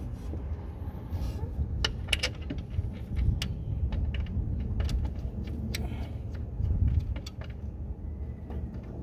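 Irregular metallic clicks, clinks and knocks of a replacement alternator and its bolt being worked into the mounting bracket of a car engine, over a steady low rumble.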